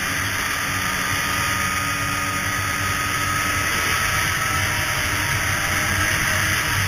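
Two-stroke Polaris snowmobile engine running steadily while the sled rides along the trail, heard from a helmet-mounted camera, with an even rush of wind and track noise over it.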